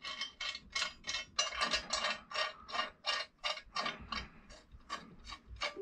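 Rapid, fairly even metallic clicking, about four clicks a second, from fitting and fastening a four-bolt flange bearing onto an aluminium motor-housing plate.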